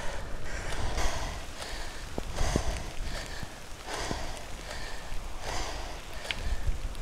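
A cyclist breathing hard while climbing a steep road gradient, with a heavy breath about every second and a half, over wind rumbling on the microphone.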